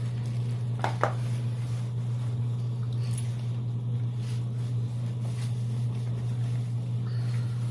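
Steady low hum, with two sharp clicks about a second in.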